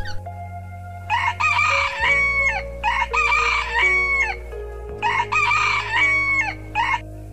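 A rooster crowing three times, each crow a full cock-a-doodle-doo.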